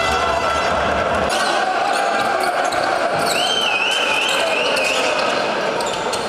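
Sound of a live indoor basketball game: the ball dribbling and bouncing on the hardwood over steady crowd noise echoing in the hall. A wavering high squeal, like shoes squeaking on the court, runs from about three to five seconds in.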